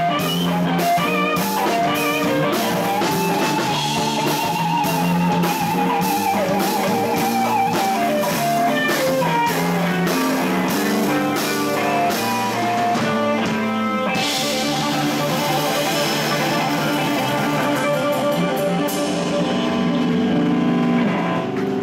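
Live rock band playing an instrumental stretch with no singing: electric guitar, bass and drum kit, with a lead line bending up and down in pitch early on.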